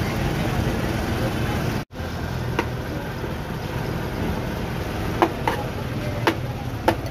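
Metal serving spoon clinking and scraping against a large metal tray and plates as rice is scooped and served, a few sharp clinks spread through the second half, over a steady hum of street and crowd noise. The sound cuts out for an instant about two seconds in.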